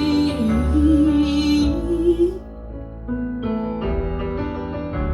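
A recorded song: a singer holds one long note with vibrato until about two seconds in, then soft keyboard chords carry on over a steady bass.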